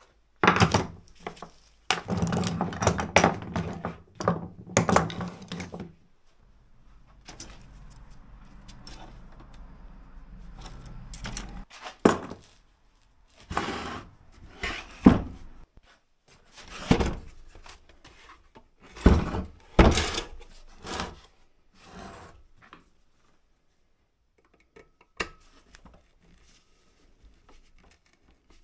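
Thunks and knocks of a heavy electric garden water pump being handled, turned over and set down on a wooden workbench. There is a quick run of knocks at the start, then about a dozen single knocks roughly a second apart that thin out and stop near the end.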